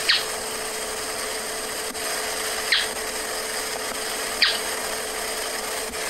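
Ash-colored tapaculo (Myornis senilis) calling: three short, sharp notes, each falling steeply in pitch, spaced a couple of seconds apart, over a steady recording hiss.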